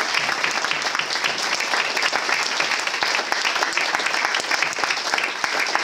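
Audience applause: a roomful of people clapping steadily.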